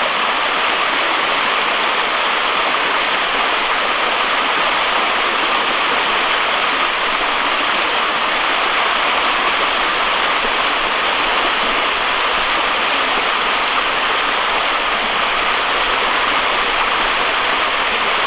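Waterfall crashing into its pool and the mountain stream below: a loud, steady rushing of water that does not change.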